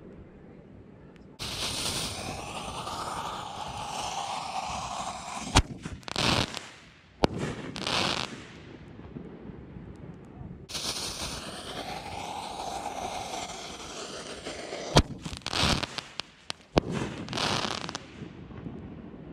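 Six-inch canister firework shells fired from a mortar tube, heard from right beside the tube. The lit fuse hisses loudly for about four seconds, then come sharp bangs as the lift charge fires and the shell breaks overhead. The whole sequence repeats about ten seconds later.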